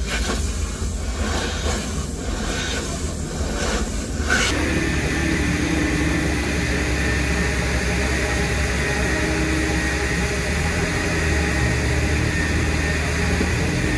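Steady drone and hiss of an air compressor filling a car tyre through a coiled air hose, starting abruptly about four and a half seconds in. Before it, a low rumble with a few knocks and rustles.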